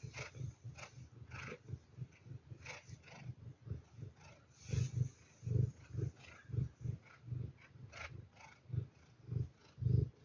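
A pet animal making a string of short, low 'gu gu' grunting calls, about one a second, louder in the second half.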